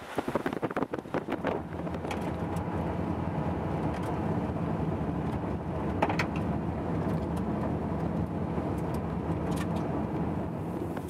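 Wind buffeting the microphone for the first second or so, then a steady low rumble with a faint hum, the kind a running vehicle engine makes.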